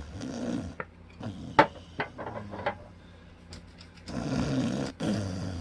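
Cloth rag scrubbing along a rosewood guitar fretboard in bursts of rubbing strokes, cleaning grime off the wood beside the frets. A few sharp clicks or knocks in the middle, the loudest about a second and a half in.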